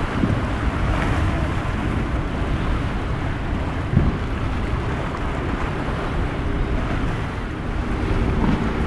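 Wind buffeting the microphone over breaking surf and rough water, with a boat's engines droning underneath; a steady engine tone comes up near the end. A brief thump about four seconds in.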